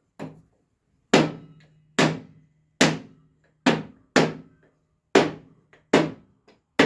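Hammer blows on a screw held against a wooden picture frame, denting the wood to give it a distressed look. About nine sharp strikes, roughly one a second, each with a short ring.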